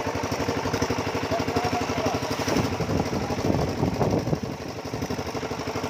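Small engine of the vehicle carrying the camera, running steadily at road speed with a rapid, even pulsing beat.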